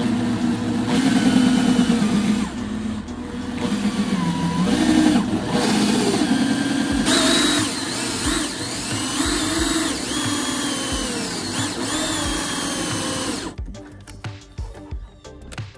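Makita 18V cordless drill running a hole saw through the plastic wall of an RV black water tank. The motor's pitch sags and rises as the cut loads it, and it stops about 13 seconds in.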